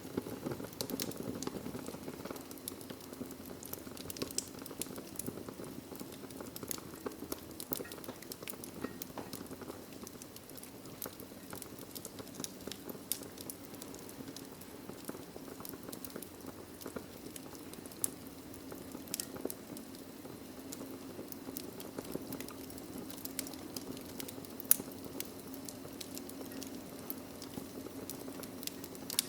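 Log fire burning in a fireplace: a steady low rush of flame with frequent small crackles and snaps of burning wood, and one sharper pop about three-quarters of the way through.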